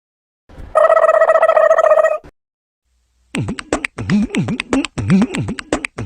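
Two comedy sound effects in a row: first a held buzzy tone lasting about a second and a half, then, after a short silence, a rhythmic beatbox-style beat of deep dropping thuds and sharp clicks, about two thuds a second.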